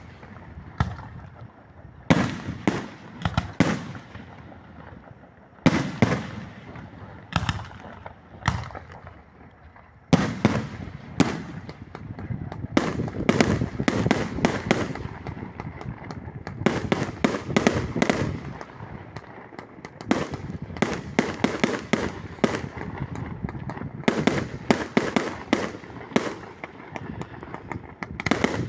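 Fireworks going off: single sharp bangs a second or two apart, each followed by a trailing crackle, turning about ten seconds in into a dense barrage of rapid reports that runs on.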